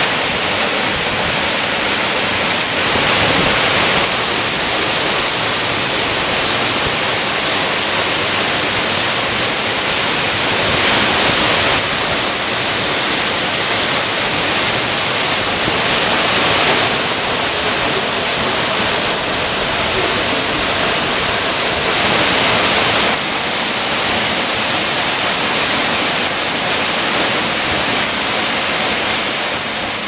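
A large waterfall: a loud, steady rush of water falling onto rock and into its plunge pool, swelling and easing a little every few seconds.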